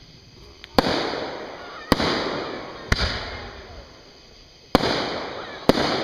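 Fireworks bursting: five sharp bangs about a second apart, with a longer gap before the fourth, each followed by a noisy tail that fades over about a second.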